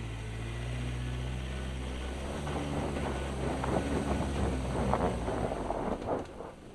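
2015 Ford Ranger's 2.2-litre turbo-diesel engine running at low revs as the pickup crawls over a rocky dirt track, with tyres crunching on gravel and stones that grow louder from about two and a half seconds in. The sound drops away abruptly near the end.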